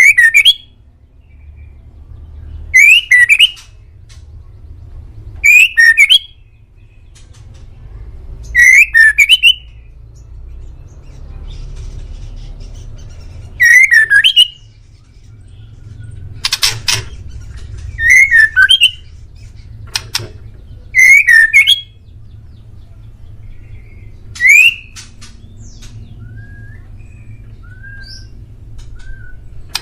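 A male white-rumped shama (murai batu) singing loud, short phrases of quick, sweeping whistles and trills, about nine phrases a few seconds apart. Softer single whistled notes come near the end.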